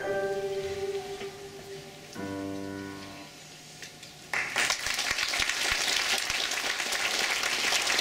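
A girls' choir and piano end on held closing chords, with a last piano chord dying away about three seconds in. Audience applause breaks out just past halfway and carries on, louder than the music.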